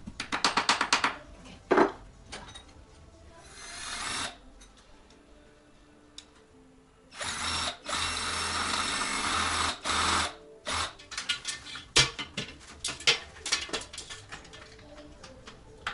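Handheld power drill running in a burst of about three seconds, stopping and restarting briefly, with clicks and knocks of handling and tool work around it.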